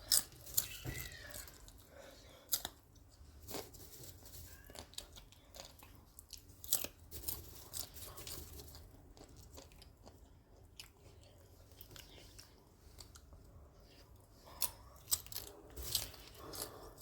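A person eating microwave popcorn: soft chewing with irregular short crunches, a few more clustered near the end.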